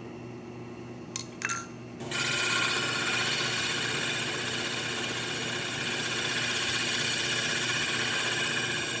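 Milling machine running, with a few light clicks a little over a second in; about two seconds in the cutter starts cutting the metal part, a louder steady cutting noise with a high ringing tone that goes on.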